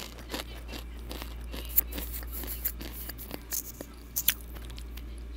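Close-up crunching of Takis rolled tortilla chips being chewed right against a wired earphone's inline microphone: irregular sharp crunches and crackles, a few of them louder, over a steady low electrical hum.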